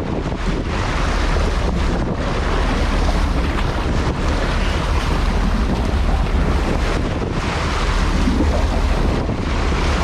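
Steady wind buffeting the microphone over the wash of sea water and a low rumble from a fishing boat at sea.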